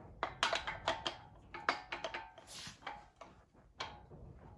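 Oil pump being worked onto the crankshaft snout: irregular metallic clinks and knocks, some with a short ring, as its drive gear is wiggled to line up with the crank.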